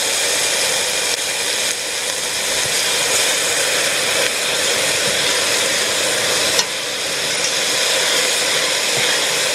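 Diced onion and garlic sizzling steadily in hot olive oil in a pot as they are stirred, with one brief click about two-thirds of the way through.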